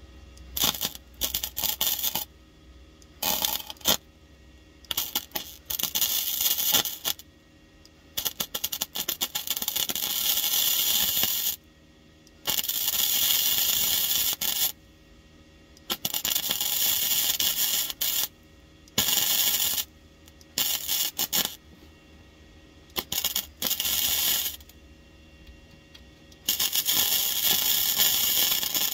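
MIG welder crackling as it lays a series of short welds on the sheet-steel rear floor pan of a car. The bursts start short and choppy, then run longer, up to about three seconds each, with brief pauses between them.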